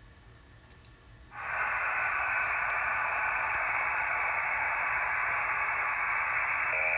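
Radio receiver hiss and static on an amateur-radio frequency, switching on suddenly about a second and a half in and then holding steady. It is a thin hiss with no deep or high tones.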